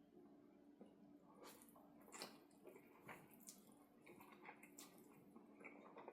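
Faint close-miked chewing: wet mouth smacks and clicks coming about once a second, over a faint steady hum.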